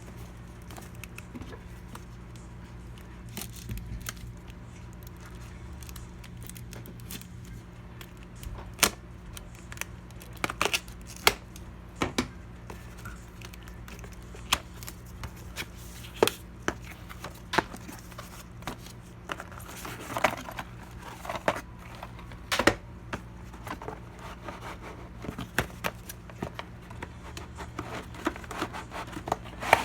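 Hands handling PC parts and packaging: irregular clicks and taps, some crinkling, over a steady low hum.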